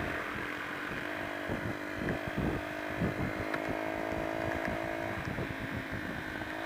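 Honda XR125's single-cylinder four-stroke engine running at a steady cruise, its note changing about five seconds in, with wind buffeting the microphone.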